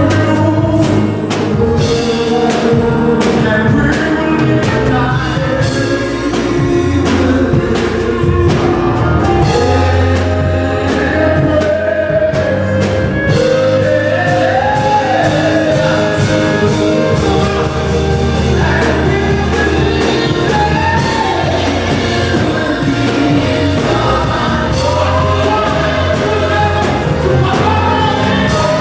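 Gospel worship song with a group of voices singing over a band with a steady bass line and a beat.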